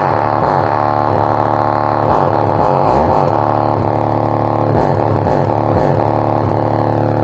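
Music played loudly through a bare woofer driven by a Heng Peng 2.1 amplifier board. The board is turned up for a maximum-output test, putting about 13 to 16 volts across the speaker.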